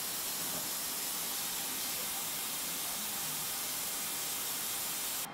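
A steady, even hiss that stops abruptly near the end.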